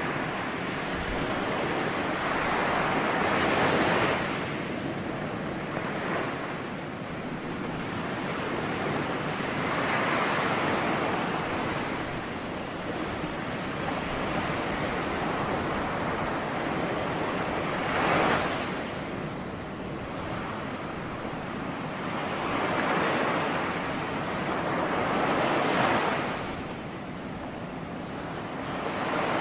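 Ocean surf: waves breaking and washing ashore over a continuous hiss, the sound swelling and falling every few seconds, with one sharper surge about two-thirds of the way through.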